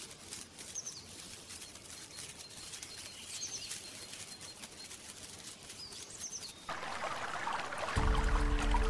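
Faint rainforest ambience with a few short, high chirps. About two-thirds of the way through, a shallow stream starts trickling over pebbles, and a steady music drone comes in near the end.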